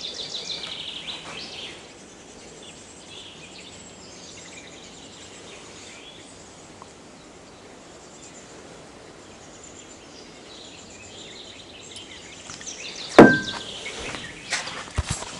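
Quiet outdoor background with faint birdsong. Near the end, a sharp metallic clank with a brief ring, followed by a few lighter knocks.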